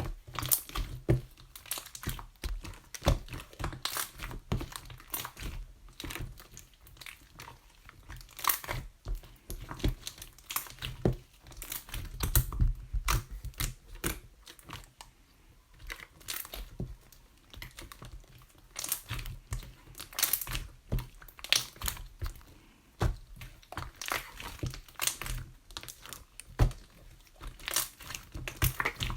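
Three-colour slime being squished, stretched and pressed by hand, giving a dense, irregular run of sticky clicks, crackles and small air pops.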